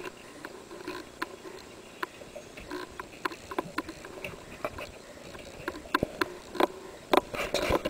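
Irregular sharp knocks and clicks, coming faster and louder in the last two seconds.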